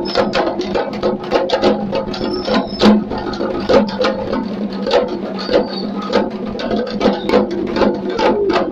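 Several large frame drums (changu) beaten with thin sticks in a fast, dense rhythm of several strokes a second, the drumheads ringing under the strikes.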